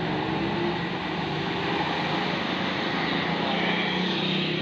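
Diesel engine of a medium-size tour bus pulling uphill as it drives past, a steady engine note with no horn.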